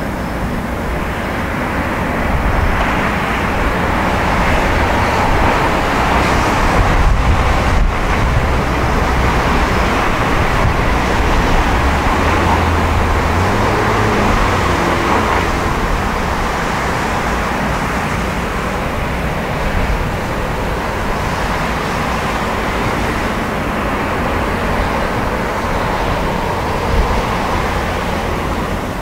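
Steady outdoor noise, a broad hiss over a low rumble with the character of distant traffic. It swells a little a few seconds in, then holds level.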